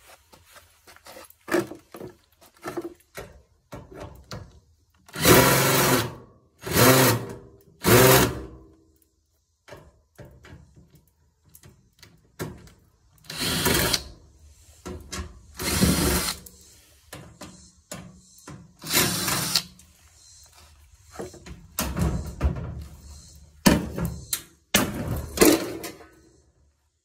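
A power drill run in about nine short bursts of under a second each, with small clicks and knocks of metal parts between them.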